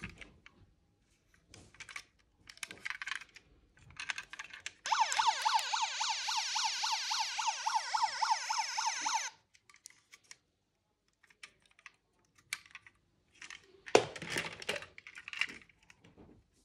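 Toy police car's built-in electronic siren sounding for about four seconds in the middle, a fast repeated up-and-down yelp that stops abruptly. Around it, light clicks and clatter of die-cast toy cars being handled against a plastic box, with a louder clatter about fourteen seconds in.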